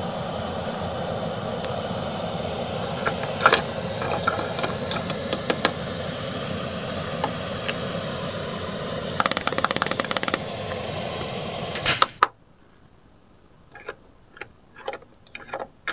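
Steady whirring hiss of a toy cooker's steam effect running, with light clicks and clatters of plastic lid and plates, including a quick run of clicks about nine seconds in. The whirring cuts off abruptly about twelve seconds in, leaving only soft clicks of a plastic spatula in the toy pot.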